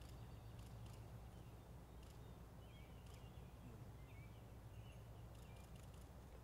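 Faint bird chirps, a few short calls scattered through the middle, over a low steady background hum; otherwise near silence.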